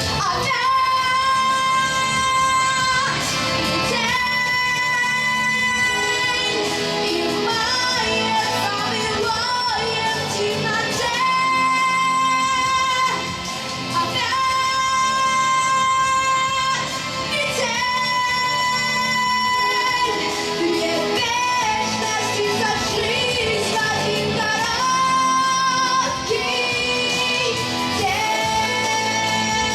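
A boy's unbroken treble voice singing a pop song over instrumental accompaniment, holding long sustained notes between sung phrases.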